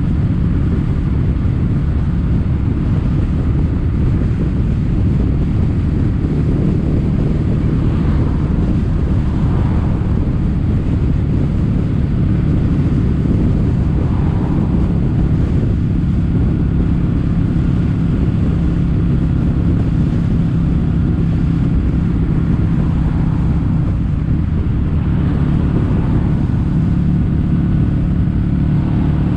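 Kawasaki W800's air-cooled parallel-twin engine running steadily through Yamato stainless-steel Cabton-style silencers while under way, with wind rushing over the microphone.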